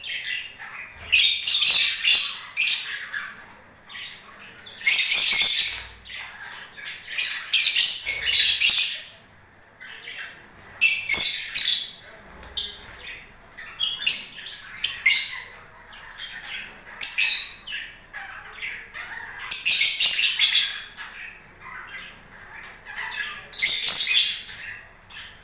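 Lovebirds giving shrill, high-pitched squawking calls in repeated bursts every second or two, with quieter chattering in between.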